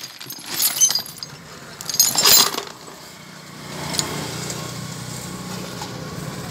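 Loose metal spray-pump parts clinking and rattling as they are handled, in two short bursts in the first half. About four seconds in, a steady low engine drone starts and carries on.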